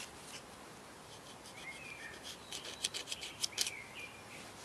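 Small knife carving a block of hoof fungus (Fomes fomentarius), a run of short, quick shaving cuts that thicken in the second half. Faint bird chirps twice.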